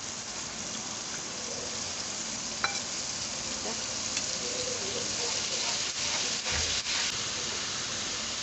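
Nihari masala and rogan sizzling and frying in a frying pan on a gas burner, a steady hiss that grows a little louder as the water in it cooks off. A spoon stirs and taps in the pan a few times.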